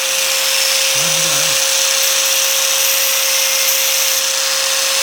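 Small electric grinder running steadily at constant speed: a high hiss over a steady hum, as used for sharpening a hole-cutter drill bit.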